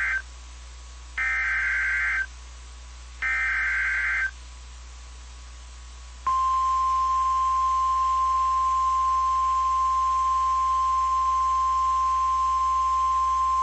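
EAS SAME header data bursts: a buzzy warbling burst about a second long, heard ending at the start and then twice more about two seconds apart. About six seconds in, the NOAA Weather Radio warning alarm starts, a single steady high tone near 1050 Hz. Together they mark the start of an emergency alert broadcast.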